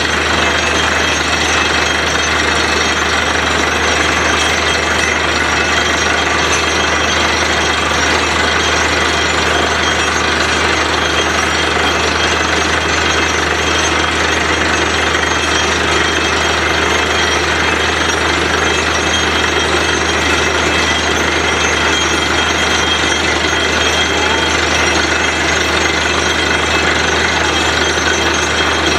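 Truck-mounted borewell drilling rig running while drilling: a loud, steady, unbroken machine din with a low hum beneath it.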